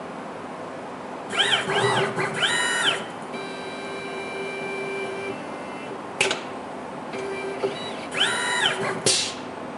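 Axis motors of a CNC PCB mill whining through a series of quick moves during an automatic tool change, each tone rising in pitch, holding, then falling. A run of moves starts about a second in and another comes near the end, with a steady hum of tones between them and a sharp click about six seconds in.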